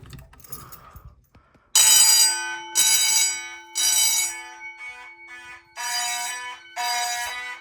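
Fire alarm horns go off about two seconds in, sounding the temporal-three evacuation pattern: three short blasts a second apart, a pause, then three more, with a steady low tone running underneath. This is the system going into alarm when one of its initiating devices is tested.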